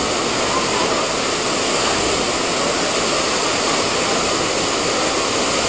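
Whitewater rapids rushing steadily, a continuous wash of fast-moving river water.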